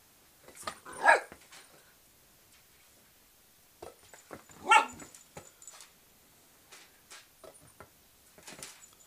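Small dog barking in play: two sharp barks about three and a half seconds apart, a weaker one near the end, with light taps in between.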